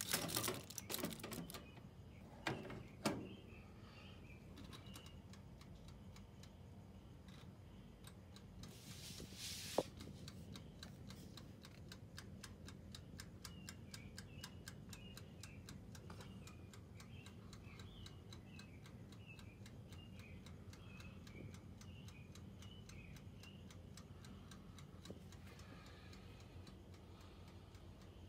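Mechanical clockwork timer of a Century electric oven toaster ticking steadily once set, with the oven switched on. Handling knocks and clatter at the start, and a single sharp click about ten seconds in before the ticking settles into an even run.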